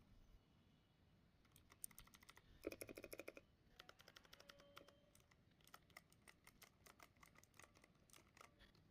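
Faint key presses on a T-Wolf T60 mechanical keyboard with clicky blue switches, starting about a second and a half in, with a quick run of presses near three seconds, then scattered clicks.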